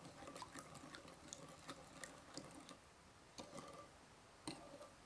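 Quiet, scattered clicks and light clinks of a spoon stirring seasoned tamarind sauce in a bowl. The clearest ringing clinks come about three and a half and four and a half seconds in.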